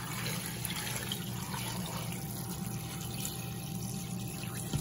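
Water pouring steadily from a large jug into a stainless steel multi-cooker pot filled with chicken bones and vegetable scraps.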